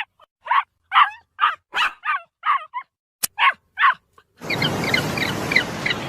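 A dog barking in short, high yaps, about eight in a row at roughly two a second. After a cut, birds chirp repeatedly over a steady hiss.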